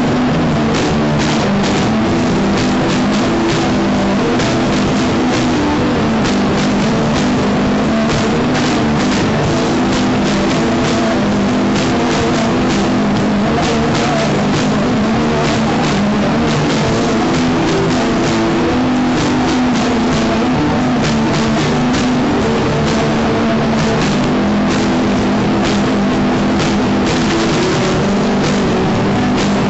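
Loud rock music from a band playing drum kit and guitar, with steady, closely spaced drum hits.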